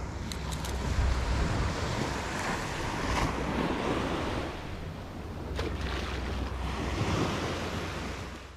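Ocean surf washing onto a beach, with wind rumbling on the microphone and a few brief clicks.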